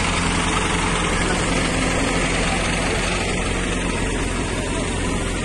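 A running engine droning steadily and low, under a constant hiss.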